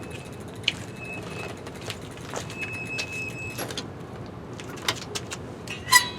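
Scattered light metallic clicks and rattles of tools and bike parts being handled, with a couple of louder metal clanks near the end.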